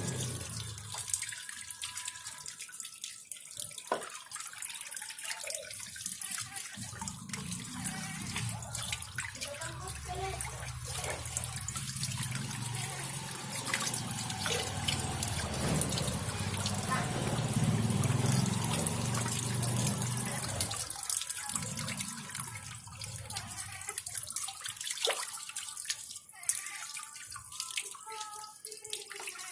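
Water running from a tap into a sink or basin, with splashing and dripping.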